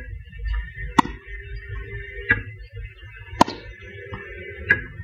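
Tennis balls being struck during a ball-machine drill: four sharp pops about a second apart, alternating louder and softer. The pops are racket hits and ball-machine launches.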